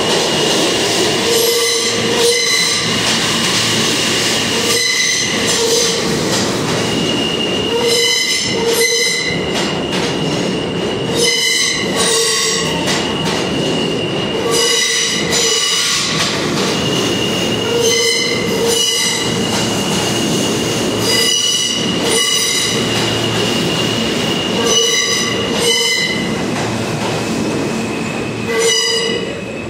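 An R160 subway train running past the platform at low, steady speed: its wheels clack over the rail joints in pairs about every three and a half seconds, with a high wheel squeal on and off. It grows quieter near the end.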